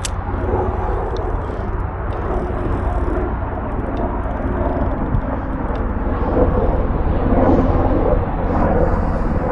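Sikorsky UH-60 Black Hawk military helicopter flying overhead: a steady low rotor and engine drone that grows louder from about six seconds in.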